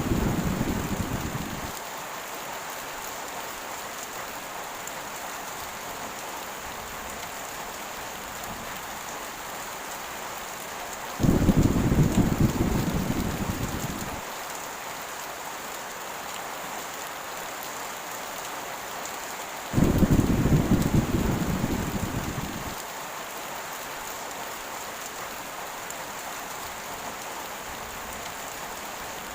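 Heavy rain falling steadily, with deep rolls of thunder: one dying away at the start, then two more about eleven and twenty seconds in, each starting suddenly and fading over about three seconds.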